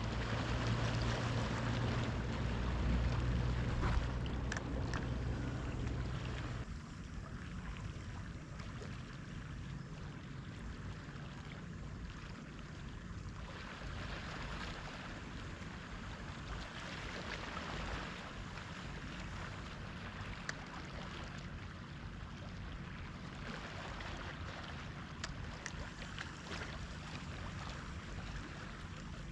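A low steady engine hum for about the first seven seconds, which stops abruptly, over a constant wash of waves and wind at the shore.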